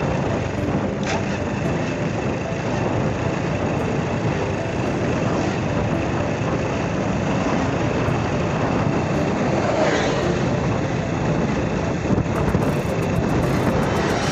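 Steady running noise of a motorbike riding along a road: engine and road noise, even throughout.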